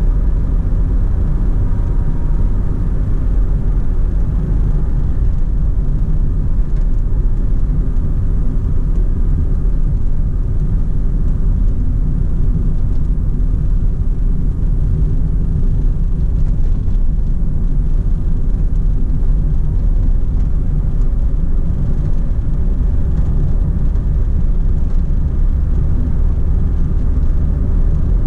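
Cabin noise of a Perodua Myvi 1.5 H hatchback on the move: a steady low rumble of engine, tyre and road noise.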